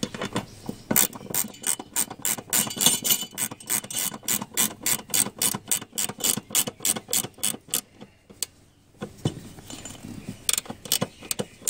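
Ratcheting spanner clicking rapidly, about four clicks a second, as a 10 mm bolt is run down to hold the fire extinguisher mount on the seat rail. The clicks stop shortly before 8 s, then a few more come near the end.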